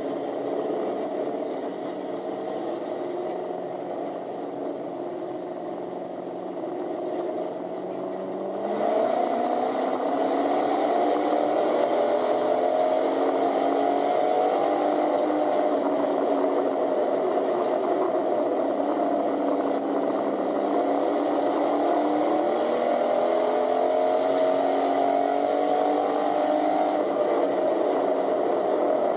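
Pure stock race car's engine heard from inside the cockpit. It runs lower and quieter at first, then about nine seconds in it gets louder and the pitch climbs as it accelerates. After that the pitch keeps rising and falling with the throttle through the laps.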